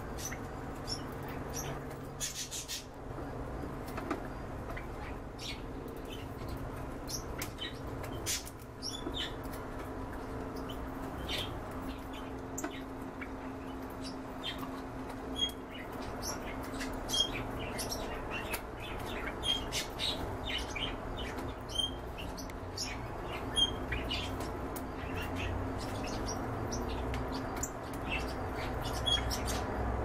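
Caged canaries giving short, scattered chirps, with light clicks and rustles of birds moving about the cage, over a steady low hum.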